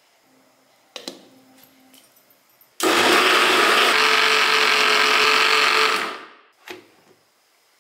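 Kitchen mixer grinder (mixie) running for about three seconds, grinding a thick cooked milk-and-cornflour ice cream mix smooth in its steel jar, then winding down. A knock comes about a second in, and a click comes after the motor stops.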